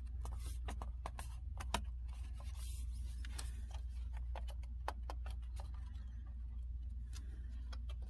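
Aluminium bottom cover of a MacBook Pro being pressed and worked onto the chassis: scattered light clicks and taps, a couple of sharper ones, over a steady low hum.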